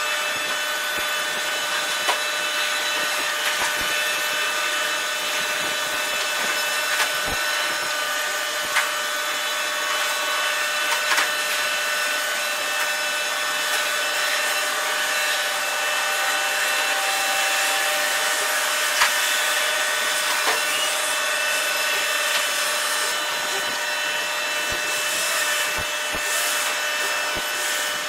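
Container crane machinery running: a steady mechanical whine of several even tones over a hiss, with faint clicks and knocks now and then.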